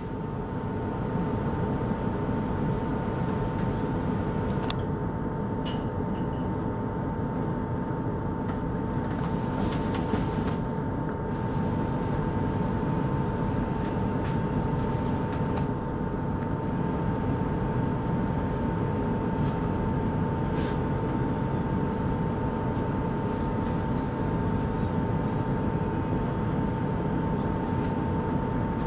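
Steady interior hum of a passenger train carriage: ventilation and onboard equipment running, with a constant high tone over an even low rumble. A few faint clicks sound between about five and eleven seconds in.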